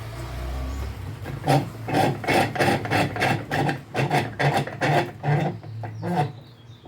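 Rhythmic hand rasping strokes, about three a second, as a part of a starter motor is rubbed back and forth by hand. The strokes start about a second and a half in and stop near the end.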